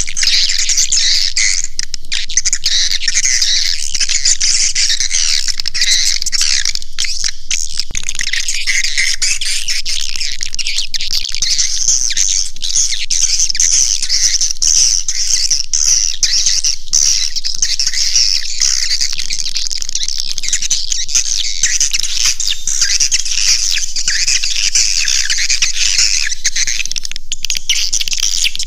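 Swiftlet caller recording: a dense, unbroken chorus of high-pitched swiftlet chirps and twitters. It is the lure sound played to draw swiftlets into a nesting house.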